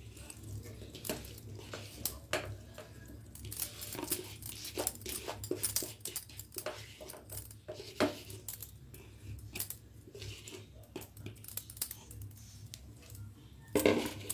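Drained cooked rice being transferred from a bowl into a mixer-grinder jar: irregular light taps, clicks and scrapes of kitchenware, with a louder clatter near the end.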